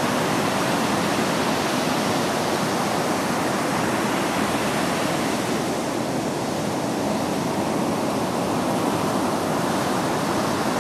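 Ocean surf: a continuous, steady rushing wash of breaking waves, easing slightly a little past the middle before filling back in.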